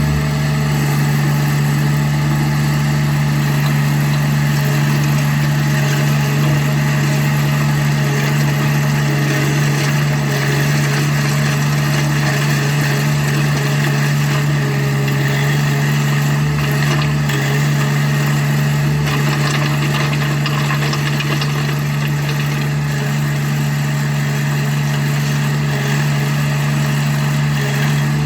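Skid steer loader engine running at a steady speed, with a constant low hum and no revving.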